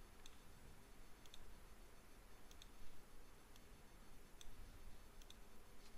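Faint, scattered clicks of a computer mouse, about one a second, against quiet room tone.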